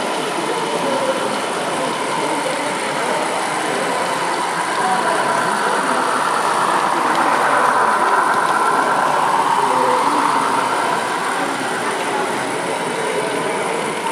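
Model railway diesel locomotive hauling a train of coaches along the layout: a steady running noise that grows louder, peaks about eight seconds in as the train passes close, then eases off.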